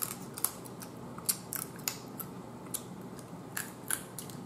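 Eating boiled blue crab close to the microphone: crab shell being picked apart and meat chewed, heard as scattered crisp clicks and crackles at an irregular pace.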